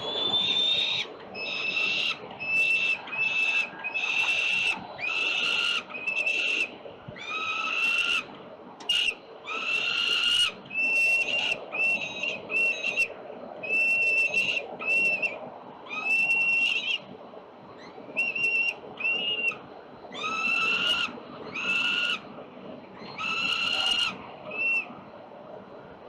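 Young peregrine falcons calling again and again: a run of loud, whining calls, each from a short note to about a second long, with short irregular gaps between them, typical of nestlings' food-begging while prey is being plucked.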